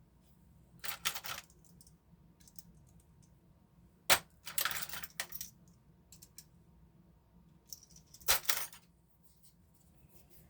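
Folding pocket knife being flipped open and shut: sharp snaps as the blade swings and locks, about 4 and 8 seconds in, each with a short metallic rattle of handling, and a similar clatter about a second in.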